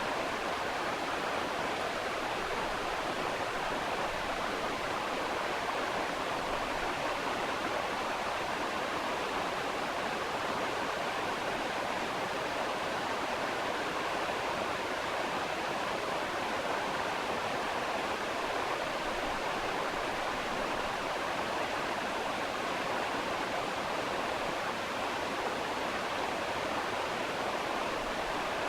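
Steady, even rushing noise like running water or a stream, unchanging throughout, with no scaler whine heard over it.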